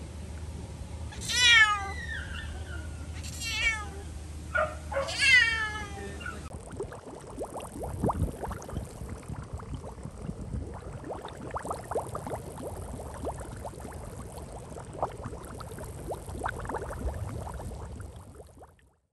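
A caged long-haired cat meowing loudly three times, each cry drawn out and falling in pitch. After a cut, faint water lapping against a rock with small splashes, fading out near the end.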